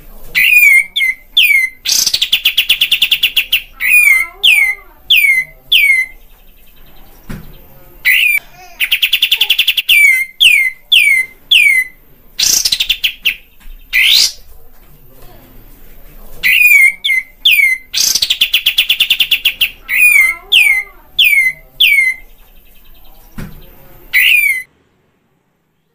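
Olive-winged bulbul (kapas tembak) singing loud, repeated phrases. Each phrase mixes a fast rattling trill with a run of quick, downward-slurred whistled notes, and the bout recurs every few seconds like a looped training recording. The song stops abruptly near the end.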